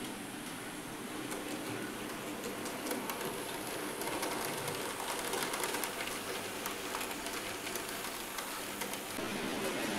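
Hornby OO gauge Black Five model locomotive and its wagons running around the layout: a steady motor whirr with a quick run of small clicks from wheels crossing the rail joints.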